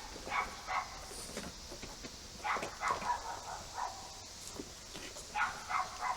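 A dog barking in short clusters of two or three quick barks, with pauses of a second or two between the clusters.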